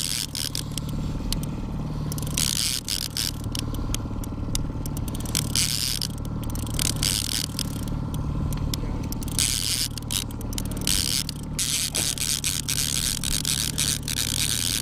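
Boat motor running steadily at trolling speed, a low even hum, with several bursts of hiss over it.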